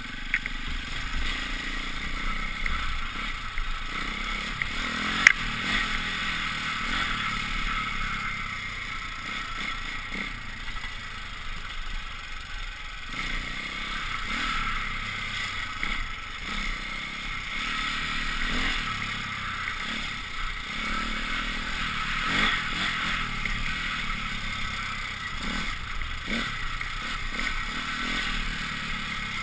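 Off-road motorcycle running steadily along a rough trail, heard from a helmet-mounted camera, with clatter from the bumpy ground and one sharp knock about five seconds in.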